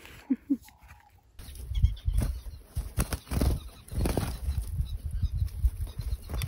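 A flock of sociable weavers flapping their wings in many quick flurries as they flutter up to take food from a hand. The flurries start about a second and a half in.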